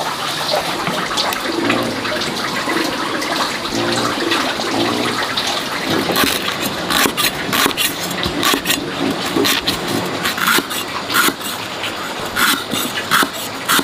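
Cleaver slicing lemongrass on a thick wooden chopping block, quick repeated chops starting about six seconds in, over a steady rush of running water.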